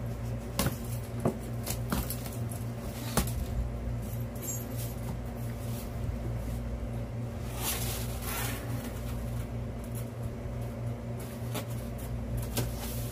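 Cardboard packaging and bubble wrap being handled while a parcel is unpacked: a few sharp taps and knocks in the first few seconds, and a rustling scrape about eight seconds in, over a steady low hum.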